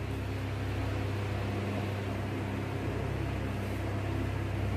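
Steady low hum with an even hiss over it.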